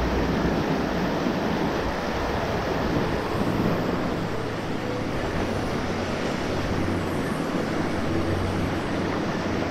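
Steady rush of a rocky mountain stream's flowing water, an even noise with no breaks.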